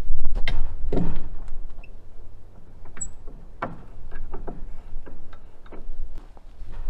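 Irregular knocks, taps and clicks from handling the wooden framing and tools, with a low rumble for the first two seconds.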